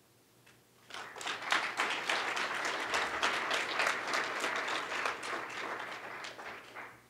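Audience applauding, a dense patter of many people clapping that starts about a second in and dies away near the end.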